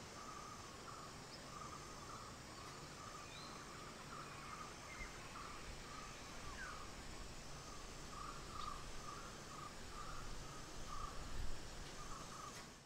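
Faint outdoor nature ambience: a steady row of short, repeated chirps at one pitch, with a few brief higher chirps and calls scattered through it.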